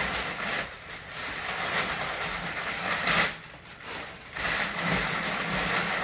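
Crumpled brown kraft packing paper rustling and crinkling as it is pulled out of a cardboard box, with a louder crackle about three seconds in and a brief lull just after.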